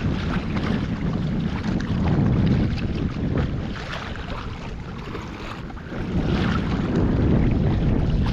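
Wind buffeting the microphone with a low, uneven rumble that swells and dips, over water lapping and splashing around a kayak.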